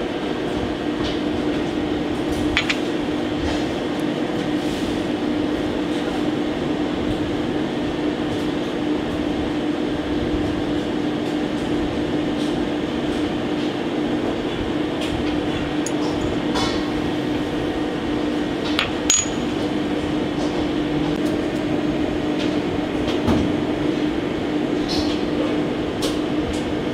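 Steady air-conditioning hum with a constant low tone, and a handful of scattered light clinks of metal tweezers against the plate as garnish is set on the tartare.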